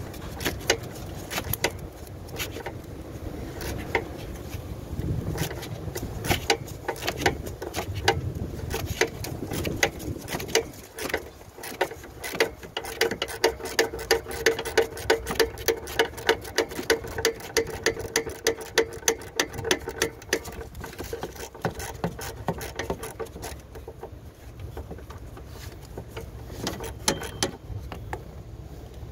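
Ratchet wrench clicking as it turns a bolt, in runs of quick clicks that are most steady and regular through the middle.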